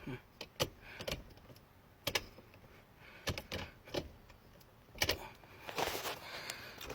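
Gear shifter of a 1992 Nissan 300ZX being worked by hand, giving irregular clicks and clunks with a rattling cluster near the end; the shifter is checked after a repair with a home-made aluminium bracket.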